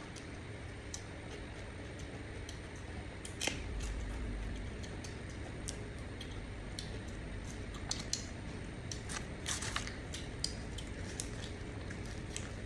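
Eating and food-handling sounds: scattered small clicks, crackles and soft squishes, with a brief low rumble about four seconds in and a denser run of crackles near ten seconds.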